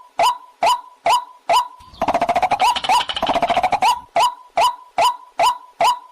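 Waterhen (jal murgi) calls: a loud, clipped note repeated about twice a second, broken in the middle by a fast chattering run of notes lasting about two seconds before the steady notes resume.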